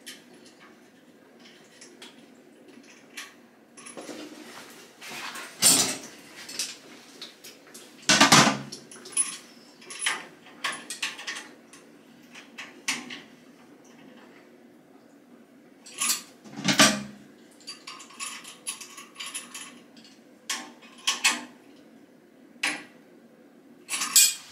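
Metal clinks, scrapes and a few louder clanks of tools and fittings as a toilet's small shut-off valve is tightened onto the water supply pipe.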